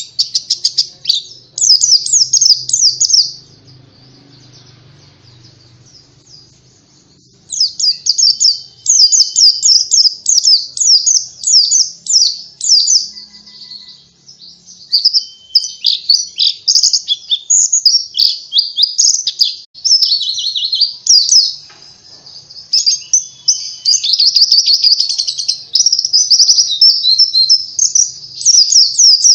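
Pet white-eye (pleci) singing a rapid, high-pitched chattering song of quick trilled phrases. After a few phrases it pauses for about four seconds, then sings almost without a break.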